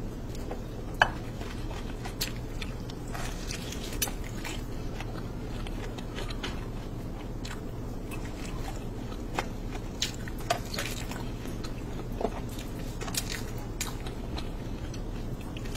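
Close-up eating sounds: chewing and mouth smacks, with irregular sharp clicks and wet squishes as fingers scoop saucy food off a plate, over a steady low hum. A sharp click about a second in is the loudest.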